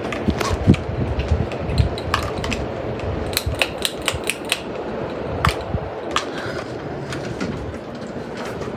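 52-inch Hampton Bay Carriage House ceiling fan running on high: a steady rush of air, with a run of irregular sharp clicks and taps bunched near the middle.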